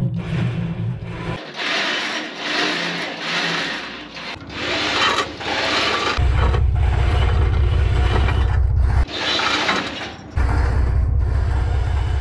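Heavy steel half-track axle parts scraping and rubbing in a run of short strokes, then a steady low rumble that cuts out about nine seconds in and returns a second later.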